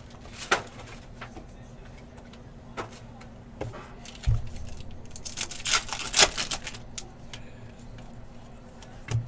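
Trading-card pack handled on a table: a few light taps and knocks, then a burst of crinkly rustling about six seconds in as the pack's plastic wrapper is torn open and the cards pulled out, and a soft thump near the end.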